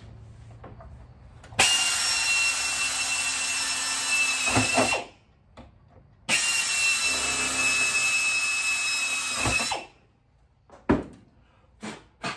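Power drill driving screws in two runs of about three and a half seconds each, a steady whine that stops as the trigger is let go. A few sharp clicks follow near the end.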